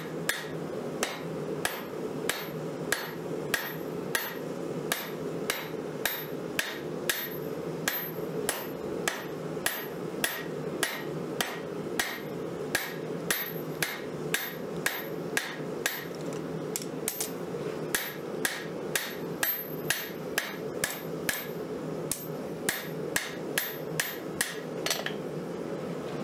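Hand hammer forging a red-hot 5160 spring-steel knife blade on an anvil: steady blows about two a second, each with a short high ring, stopping about a second before the end. A steady low hum runs underneath.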